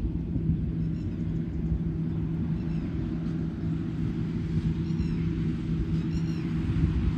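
Rice combine harvesters' diesel engines running with a steady low drone. Twice in the second half, a short, high call rises and falls in pitch from an animal.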